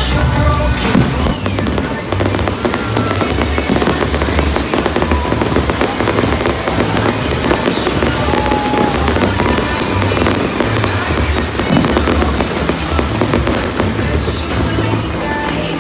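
A dense fireworks barrage, rapid bangs and crackles packed together throughout, over loud pop music with a steady beat.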